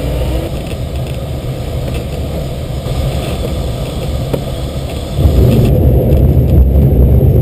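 Sailplane in flight: steady airflow noise rushing past the cockpit. About five seconds in it gives way abruptly to a louder, low rumble as the glider's wheel rolls along the runway after touchdown.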